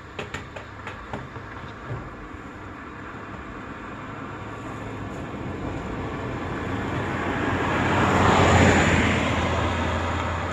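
A vehicle going by: its rush swells steadily, peaks about eight seconds in and then eases off, over a steady low hum. A few light clicks come near the start.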